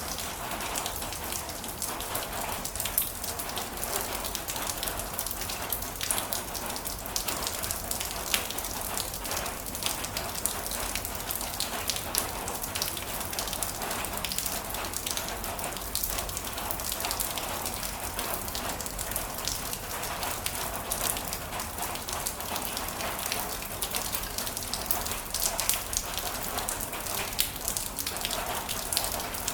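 Heavy rain falling steadily, with many sharp, close drop strikes pattering on a surface.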